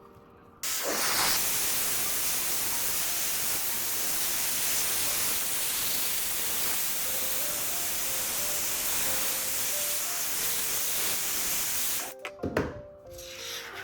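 A loud, steady hiss starts suddenly about half a second in, holds even, and cuts off shortly before the end, over soft background music.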